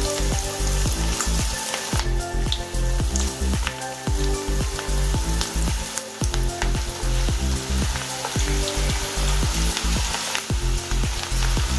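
Ragi-flour pakodas deep-frying in hot oil: a steady sizzle with small crackles, under background music with a steady beat.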